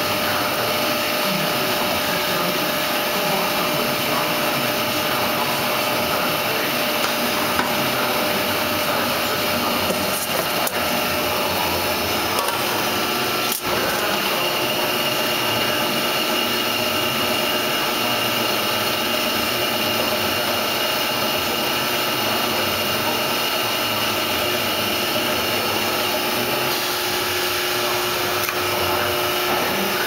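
Steady machinery noise of a net-weight pail-filling line: a constant whirring hiss with a few faint steady hums over it.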